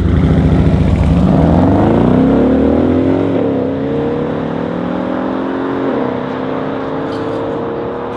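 Mercedes S63 AMG coupe with an Akrapovic exhaust, racing a Mercedes SLR McLaren roadster from a standing drag-race launch. The engines run loud and low at the line, then rise steeply in pitch under full acceleration. There are two upshifts, about three and a half and six seconds in, each a short dip in pitch before the revs climb again, and the sound fades gradually as the cars pull away.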